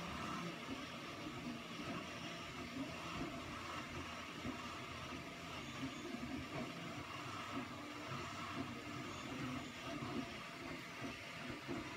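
Steady background hum and hiss, with no distinct events.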